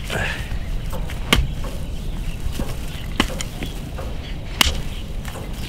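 A hoe chopping into dry, stubbly field soil to dig a hole: three sharp strikes about a second and a half apart, with softer knocks of the blade and clods between them.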